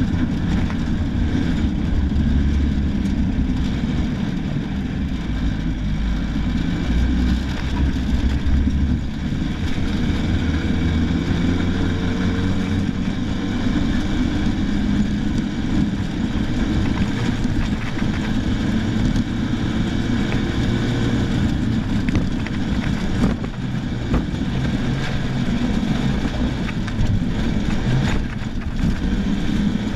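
Rally car engine running hard, heard on board while driving fast on a dirt track, with its pitch shifting up and down over a steady rumble of road and wind noise.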